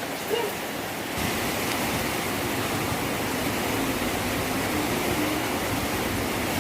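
Heavy rain pouring down in a storm, a steady rushing hiss that grows louder and fuller about a second in.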